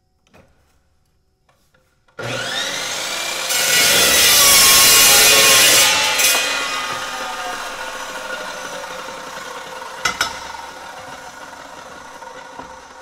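Evolution 14-inch metal chop saw with a 66-tooth cold-cut blade switched on about two seconds in, biting through steel for a few seconds at its loudest, then coasting down slowly after the cut with a falling whine. A single sharp clack comes about ten seconds in.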